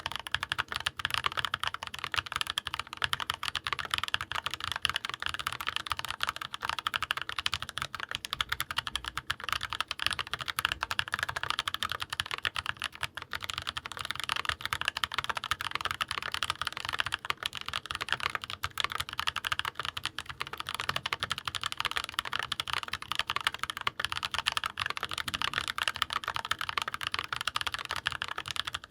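Continuous fast typing on a stock GMMK Pro mechanical keyboard with factory-lubed HUANO White Blue switches and GMK keycaps: a dense, unbroken run of keystroke clacks.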